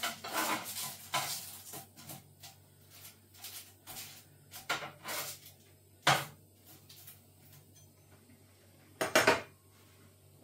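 A metal slice scraping and clinking against a foil-lined baking tray as oven chips are turned over, in a run of short scrapes and clicks. A sharp clank about six seconds in and a louder double clank near the end.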